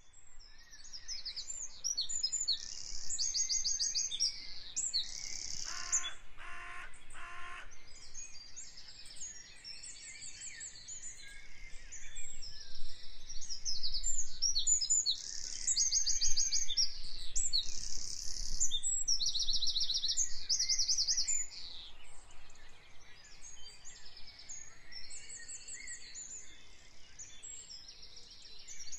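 Several songbirds singing together, a busy mix of fast high trills and chirps overlapping throughout. A lower call pulses about four times around six seconds in.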